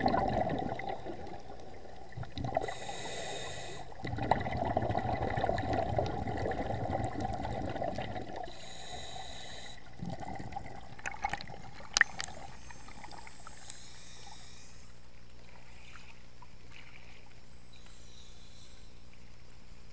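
Muffled rushing and gurgling of air bubbles heard underwater through a camera's waterproof housing, coming in several bursts as a scuba diver exhales through the regulator. A few sharp clicks come about eleven to twelve seconds in, and after that the sound drops to a quieter steady hiss.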